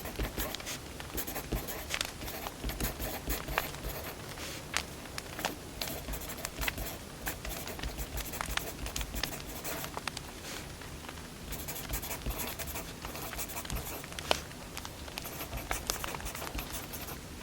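Wood fire burning, crackling with many sharp irregular pops and snaps over a steady low hiss.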